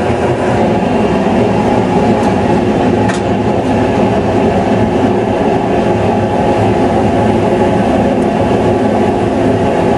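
Forced-air gas forge running: a loud, steady roar of the burner flame and air blast.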